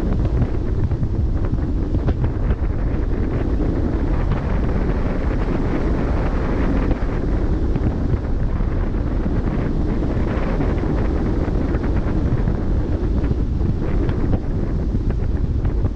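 Wind blowing across the microphone on the bow of a ship under way at sea, a steady low rush with the wash of the sea beneath it.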